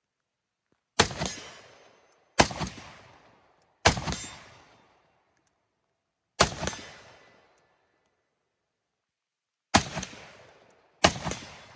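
Six rifle shots fired one at a time at uneven intervals, from about 1 to 3.5 seconds apart, each a sharp crack followed by a fading echo.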